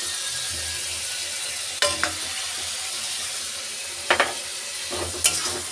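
Ginger-garlic paste sizzling in hot oil and onion paste in a metal kadhai, a steady hiss throughout. A slotted metal spoon scraping the paste in knocks sharply several times, twice around two seconds in and again about four and five seconds in.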